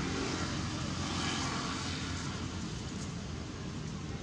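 Distant engine drone, a steady rushing noise that swells about a second in and then eases off.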